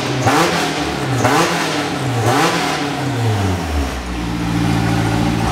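2003 Honda S2000 F20C four-cylinder engine running on an open header with no exhaust fitted, revved in several quick blips that rise and fall in pitch, then dropping back to a steady idle near the end. It sounds like a street bike.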